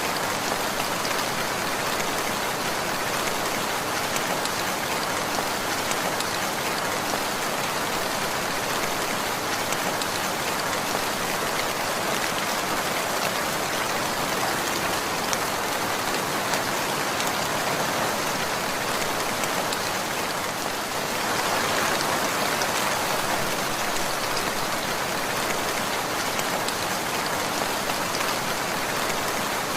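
Steady rainfall, a dense hiss of drops with fine individual ticks of raindrops striking a surface, growing slightly heavier about two-thirds of the way through.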